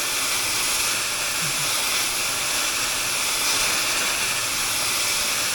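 Oxy-fuel gas torch flame hissing steadily as it heats a metal bar red-hot for bending.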